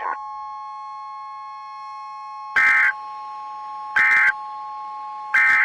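Emergency Alert System end-of-message code: three short, buzzy digital data bursts about 1.4 seconds apart, marking the close of the alert. A steady two-note electronic tone hums underneath throughout.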